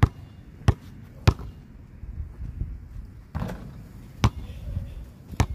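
A basketball bouncing hard several times, about six sharp, separate thuds at irregular intervals.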